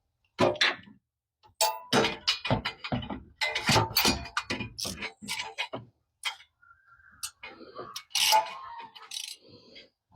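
Ratchet wrench clicking and metal tools clinking in irregular bursts while spark plugs are being removed, with a lull about two-thirds of the way through.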